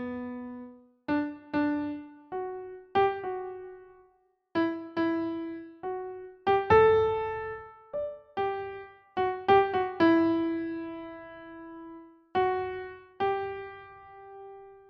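Slow solo keyboard melody in a soft piano tone. Single notes are played one at a time, roughly one or two a second, and each rings out and fades. One long note near the middle is held for about two seconds.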